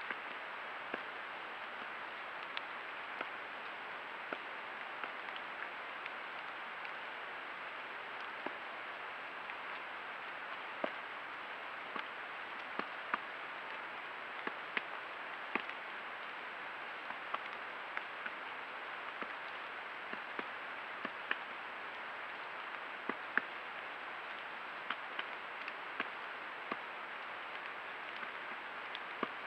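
Black woodpecker pecking at a rotten fallen log: irregular sharp taps, one or two a second, some much louder than others, over a steady hiss.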